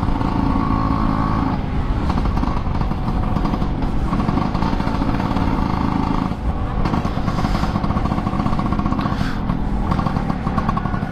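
Two-stroke Vespa scooter engine running steadily under way in fourth gear. The engine note dips briefly about six seconds in, then picks up again.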